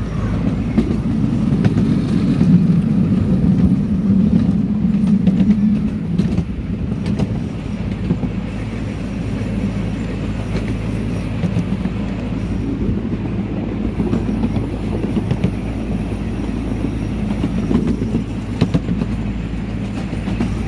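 Small park ride train running along its track, heard from aboard: a steady low rumble of the locomotive and wheels, with faint clicks.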